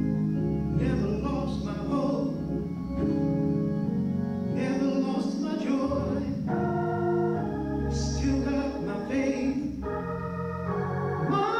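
Gospel song accompaniment between sung lines: sustained organ-like keyboard chords that move to a new chord every few seconds.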